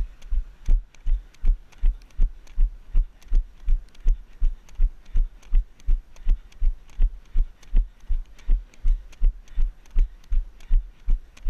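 Running footfalls picked up by a body-worn GoPro: a steady train of low thumps, about three a second at running pace, each stride jolting the camera.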